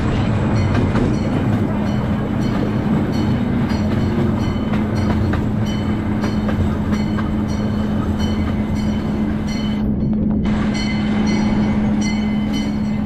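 Miniature ride-on train running along its track: a steady engine hum under the rumble of the cars, with wheels clicking at a regular beat over the rail joints.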